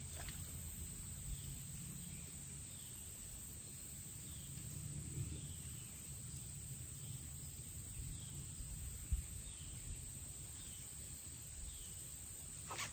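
Faint outdoor swamp ambience: a low steady rumble, with a short, high, falling chirp from a distant animal repeated about once a second, and a few soft clicks.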